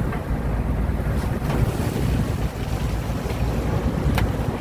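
Wind rumbling on the microphone over the wash of the sea along a fishing boat's side, with a few short sharp knocks, the clearest near the end.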